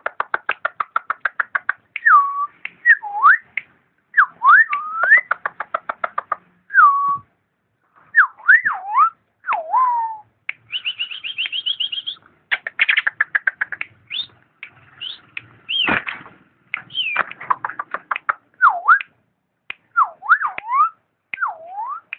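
Starling (jalak) singing a varied song: fast runs of rapid ticks, clear whistles swooping down and back up, and a high trill about ten seconds in.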